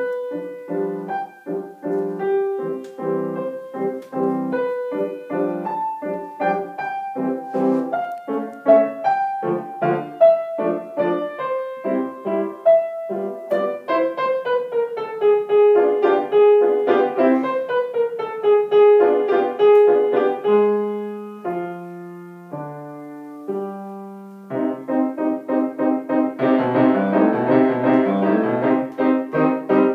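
Solo grand piano played live: quick repeated chords and runs, a falling line of notes near the middle, a few slow low notes, then fast, dense repeated chords near the end.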